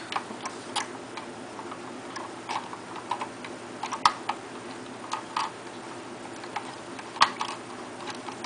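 Lego plastic parts being handled: irregular small clicks and taps as a minifigure is fitted into the helicopter cabin's seat, with two sharper clicks about four and seven seconds in.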